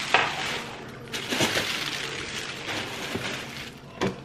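Plastic packaging rustling and crinkling as items are pulled out of a cardboard shipping box, with a sharp knock just after the start.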